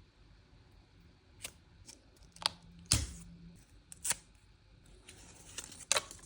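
Plastic packaging and parts handled during a GoPro unboxing: several sharp clicks and snaps at irregular intervals, with a second of rustling near the end.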